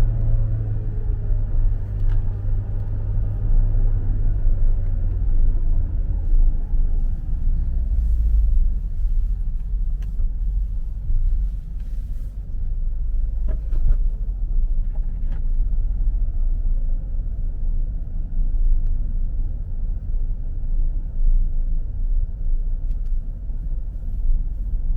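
A car driving: a steady low engine and road rumble, with the engine's pitch falling over the first few seconds.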